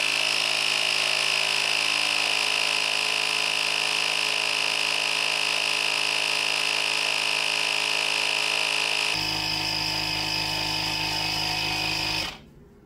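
Small electric air compressor running steadily, pumping a tyre up toward 70 psi. About nine seconds in its note deepens, and it cuts off about three seconds later as the pressure reaches 70 psi.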